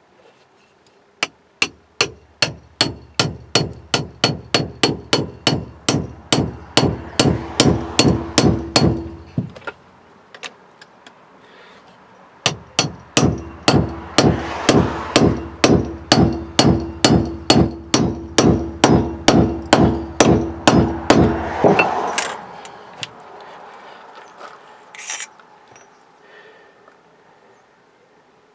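Hammer striking a stacked pair of 3/4-inch-drive deep sockets, driving a Speedi-Sleeve repair sleeve down a distributor shaft. The strikes come steadily, about three a second and each with a short metallic ring, in two long runs with a pause of a few seconds between.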